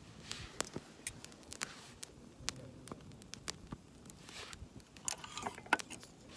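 Wood campfire crackling, with irregular sharp pops. Brief rustling sounds come a little past four seconds in and again about five seconds in.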